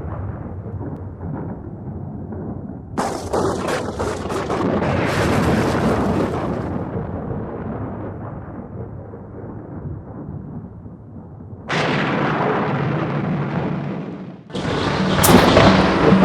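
Film-soundtrack sound effects: deep rumbling booms like thunder or explosions, with sudden loud hits about three seconds in and again near twelve seconds, and music swelling in near the end.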